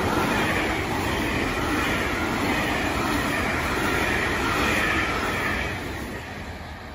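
Freight train of container flat wagons passing at speed: steady, loud noise of wheels on rail and rattling wagons. It fades in the last second or so as the end of the train goes by.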